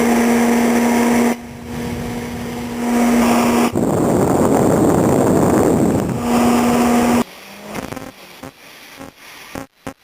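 CT520D welder/plasma cutter switched into plasma-cut mode, its cooling fan humming with a steady tone that cuts out and comes back on. The fan fault is tied to touching the metal. There is a loud rushing noise in the middle and a run of clicks near the end.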